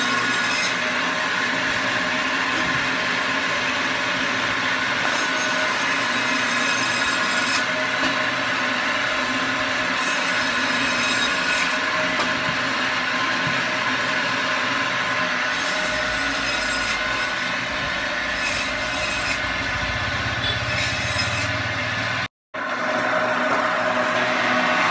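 Electric band saw running, its blade cutting through a frozen grouper into steaks: a steady, continuous sawing noise. The sound cuts out for an instant near the end.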